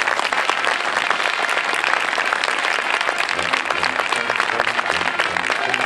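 A crowd applauding, many hands clapping steadily without a break.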